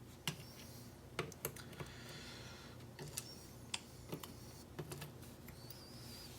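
Irregular light clicks and taps of small metal lock parts, pins and springs, being handled while a pin-tumbler lock is taken apart.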